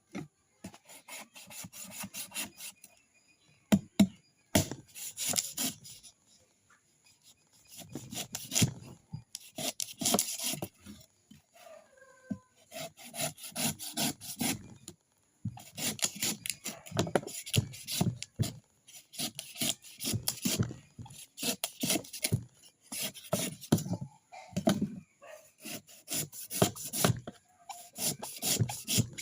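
Coconut being scraped: quick, rough, rhythmic strokes in runs of a few seconds, with short pauses between them.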